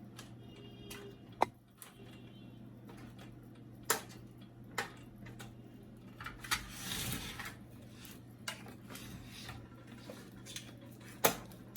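Scattered plastic clicks and knocks as the snap-lock latches of an HP LaserJet P1102's plastic side cover are pried open, with a short scraping stretch near the middle. A faint steady hum sits underneath.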